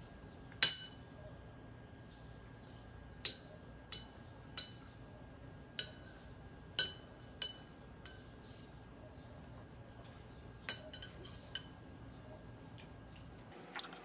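A ceramic spoon clinking against a ceramic dish, about nine light, irregularly spaced clinks, each with a short ringing tone; the first is the loudest.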